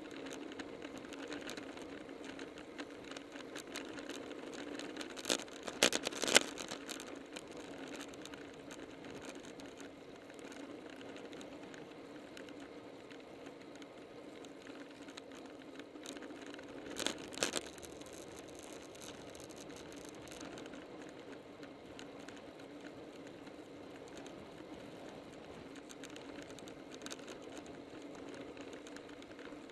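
Riding noise picked up by an action camera mounted on a road bike at speed: steady road and wind noise with a light rattle, broken by a few sharp clicks or knocks about five to six seconds in, the loudest, and again at about seventeen seconds.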